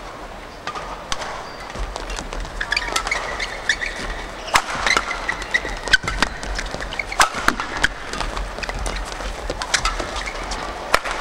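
Badminton doubles rally: rackets striking the feathered shuttlecock in a quick, irregular exchange of sharp hits, with court shoes squeaking on the court mat as the players move.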